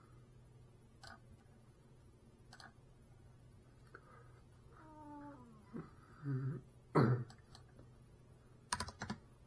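Steady low hum with scattered faint clicks. About five seconds in there is a short call that falls in pitch, then a sharp knock at about seven seconds and a quick cluster of clicks near the end.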